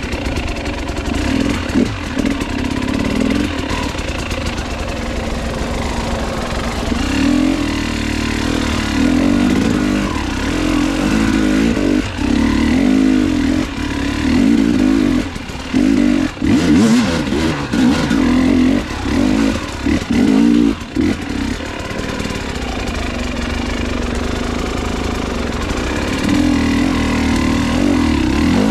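Motorcycle engine being ridden, revving up and easing off again and again, its note rising and falling.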